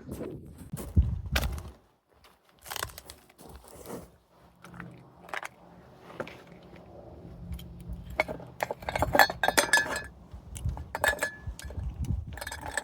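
A series of clinks and knocks from hard objects such as glassware being handled and set down, thickest near the end.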